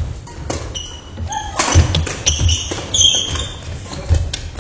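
Badminton rally on a wooden gym floor: several sharp racket hits on the shuttlecock, short squeaks of sneakers on the boards and thudding footsteps, echoing in the hall.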